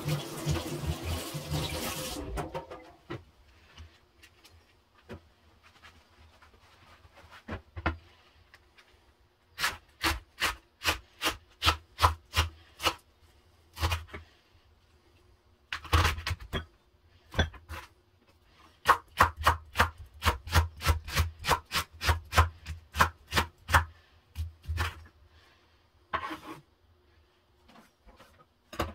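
Water running for about two seconds, then stopping. Then a chef's knife chopping a leek on a wooden cutting board: runs of sharp knocks of the blade on the board, about three a second, with a pause in the middle.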